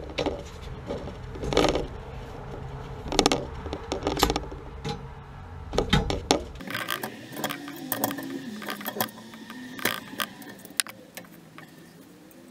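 Metal knocks, clinks and rattles from handling and fastening water heater pipework with a hand tool, a sharp knock every second or so. A low steady hum underneath cuts off abruptly about halfway through.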